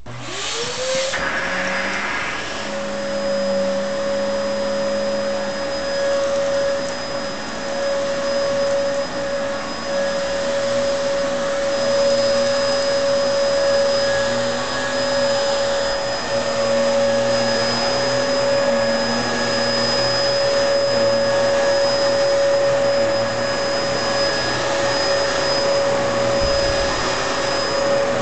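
Vacuum cleaner switched on, its motor spinning up with a rising whine over about a second, then running steadily with a constant whine and rush of air.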